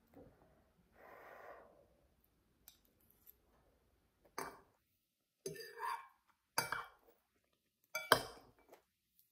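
A few short, separate clinks and knocks, as of tableware being handled, with a soft breath-like hiss about a second in.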